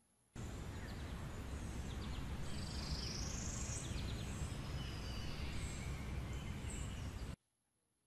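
Steady outdoor background noise with a low rumble, and a few short bird chirps over it; it cuts off suddenly near the end.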